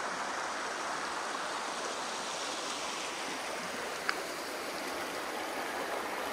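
Shallow river running over a bed of pebbles and stones with a steady rushing babble. A single short click sounds about four seconds in.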